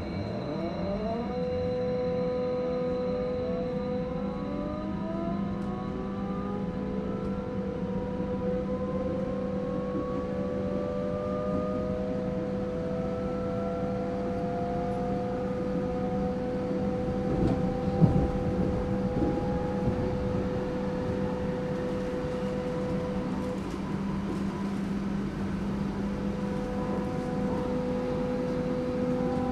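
AEG/MAN/Siemens DT1 U-Bahn train with three-phase AC drive accelerating. The traction motors whine in several tones that rise together in pitch and level off over the first dozen seconds, over a steady hum and a steady middle tone. There is a brief clatter about eighteen seconds in, and the steady tone drops out for a few seconds near the end.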